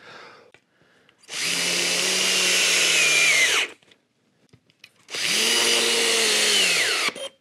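Cordless drill-driver driving two screws into a Telecaster's steel bridge plate, one after the other: two runs of the motor about two seconds each, with its whine dropping in pitch near the end of each run as the screw draws tight.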